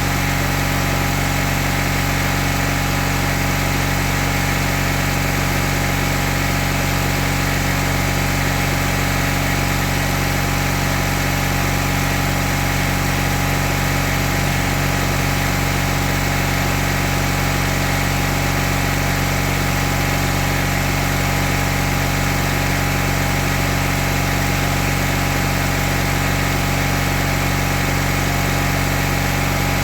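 Mahindra Supro's two-cylinder diesel engine idling steadily during a forced regeneration, run to test the urea (DEF) pump and doser.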